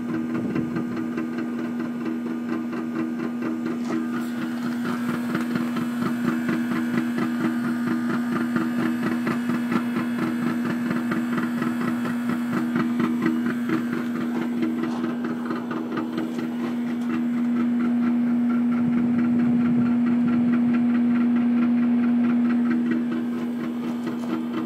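Trane air conditioner making an abnormal loud, steady buzzing hum with a fast rattle over it. About two-thirds of the way through, the hum swells louder and smoother for several seconds, then falls back to the rattling buzz.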